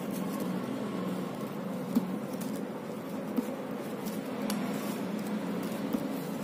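A steady low motor hum, with a few faint ticks and rustles as gold satin ribbon is wound around a wooden rod.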